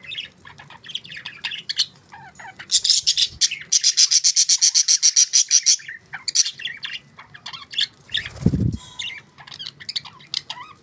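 Budgerigars chirping and chattering, with a loud, fast run of repeated chirps from about three to six seconds in. A brief low thump about eight seconds in.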